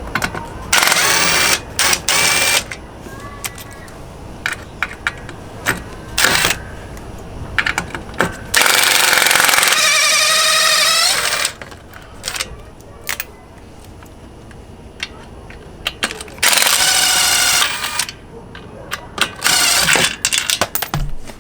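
Impact gun fitted with a T40 Torx bit, backing out three bolts on a Vespa scooter: four loud hammering bursts of one to three seconds each, the longest, near the middle, with the motor's whine rising, and small clicks and clatter between.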